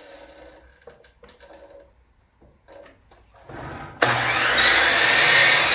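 Light handling sounds as a board is set against the fence, then about four seconds in a Craftsman sliding miter saw's motor starts with a sudden loud whine, spinning up as the blade comes down to crosscut a 1/4-inch birch plywood panel.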